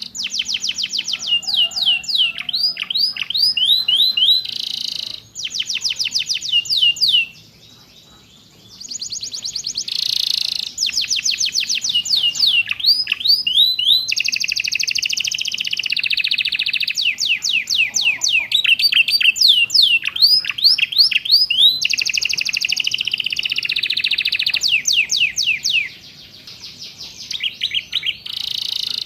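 Domestic canary singing a 'kenari isian' song stuffed with calls learned from ciblek and prenjak: fast runs of sharp repeated notes and quick downward-sweeping whistles, broken by buzzy rolling trills. The song pauses briefly about eight seconds in.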